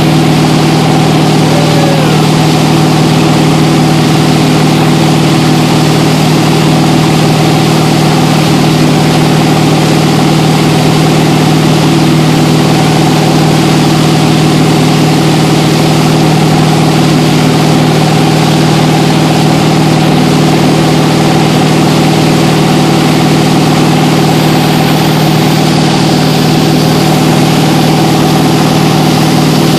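Towboat's engine running steadily at a constant speed, under an even rush of churning wake water.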